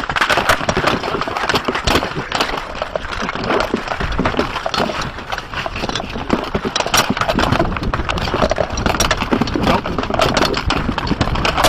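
Melee combat din: rapid, irregular knocks of rattan weapons striking shields and armour over a constant rumbling rustle of movement.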